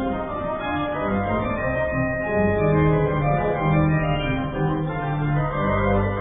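Organ music: held chords over sustained deep bass notes, with the pitches changing every second or so.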